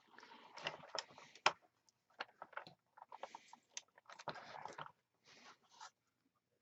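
Handling noises: irregular clicks, light knocks and scraping rustles in short clusters, with one sharper click about a second and a half in.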